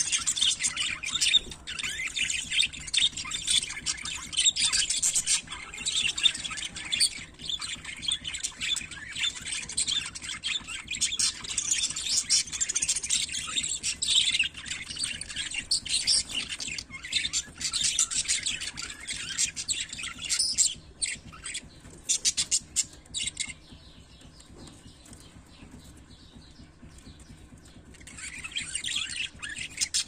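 A flock of budgerigars chattering and warbling, a dense run of high chirps. The chatter thins out a little after two-thirds of the way through, falls to a brief lull, and picks up again near the end.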